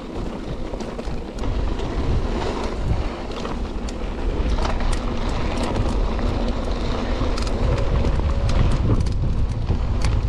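Mountain bike descending a dirt trail at speed: wind rushing over the microphone and tyres rumbling on the ground, with many sharp rattles and clicks as the bike jolts over bumps. The wind noise grows louder toward the end.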